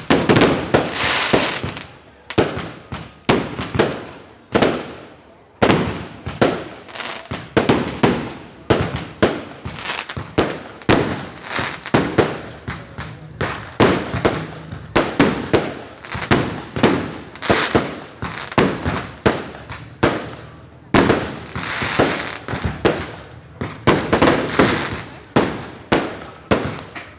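Fireworks and firecrackers going off in a dense, continuous barrage: many sharp bangs and cracks each second, with barely a gap between them.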